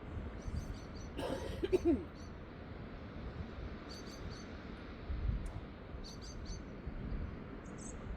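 Steady wash of sea and wind, with gusts of low wind rumble on the microphone. Small birds chirp in short high clusters several times, and about a second and a half in there is a louder brief sound that slides in pitch.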